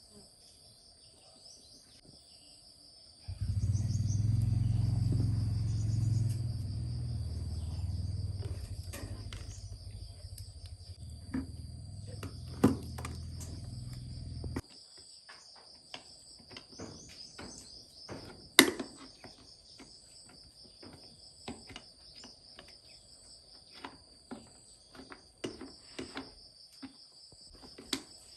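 Crickets chirping steadily. A loud low hum cuts in abruptly about three seconds in, weakens a little and stops sharply about halfway through. Scattered clicks and knocks follow.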